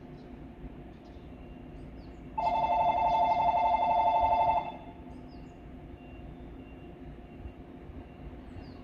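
An electric station bell rings steadily for about two seconds, starting a couple of seconds in, over the low steady hum of a stopped electric train.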